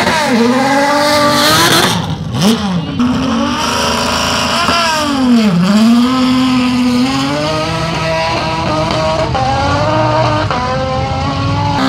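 Open-wheel single-seater race car engine revving up and down at the start line, then a sharp drop in revs as it launches about five and a half seconds in, followed by hard acceleration climbing through the gears.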